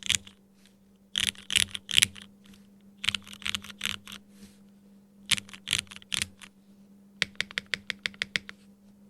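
Typing on a Bakeneko65 gasket-mount mechanical keyboard with lubed and filmed Hyperglide MX Black linear switches, FR4 plate and GMK keycaps, which the owner notes are still a bit scratchy from hand break-in. The keystrokes come in short bursts, then a quick run of about a dozen presses near the end.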